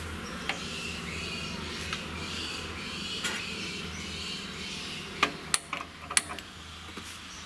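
Birds chirping outdoors, with a few sharp clicks about five to six seconds in.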